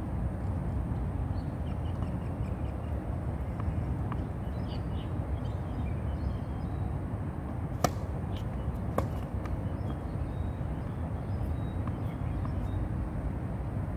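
Two sharp tennis ball hits on a hard court, about a second apart, over a steady low outdoor rumble.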